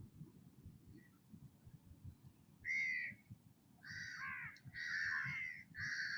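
A crow cawing four times in quick succession, harsh calls starting about halfway through.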